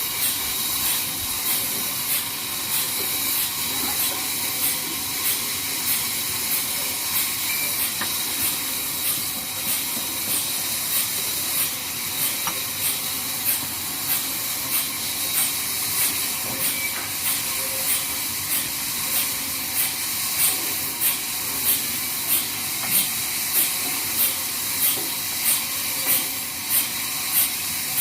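Sawmill band saw running: a steady hiss with a thin high whine and a regular light tick about every two-thirds of a second.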